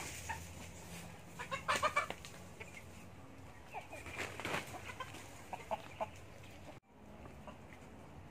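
Chickens clucking in short calls, with brief rustling and scraping from hands working substrate in a metal basin.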